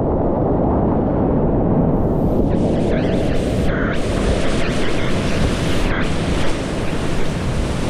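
High-water whitewater rapids on the South Yuba River (about 3,000 cfs) rushing and churning close around a kayak, a loud steady noise. It sounds dull and muffled for the first two seconds, then turns bright and full.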